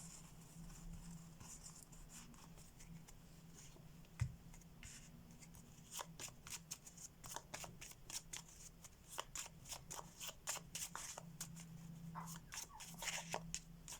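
Faint shuffling of a deck of playing cards by hand: a quick, dense run of light card clicks from about six seconds in. A single soft knock comes about four seconds in.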